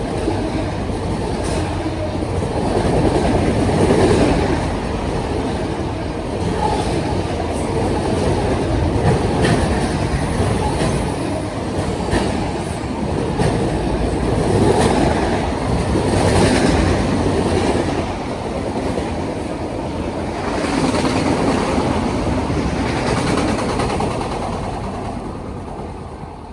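Freight train autorack cars rolling past close by: steady steel-wheel rumble with clacking over the rail joints, rising and falling as the cars go by. The sound fades near the end as the last car moves away.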